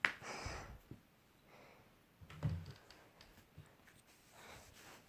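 A computer keyboard typed on: a few faint, scattered keystroke clicks.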